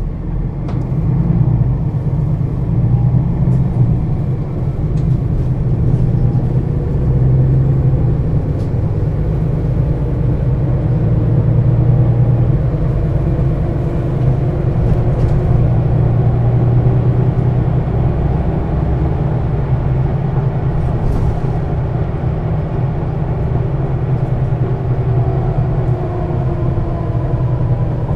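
2013 Setra S 415 NF city bus running while driving: a steady low rumble from the engine and drivetrain, with a faint whine that slowly rises and falls in pitch.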